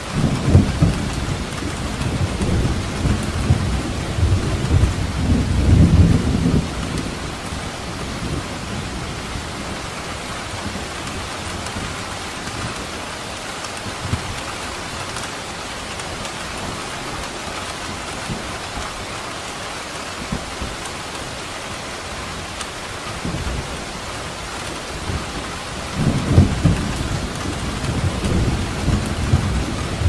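Steady rain with rolling thunder. A long low rumble fills roughly the first seven seconds and then fades out, and another rumble builds near the end.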